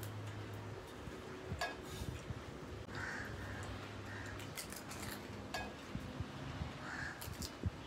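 Scattered sharp clicks and clinks of people eating panipuri at a table set with steel plates. A bird calls briefly twice in the background, about three seconds in and near the end.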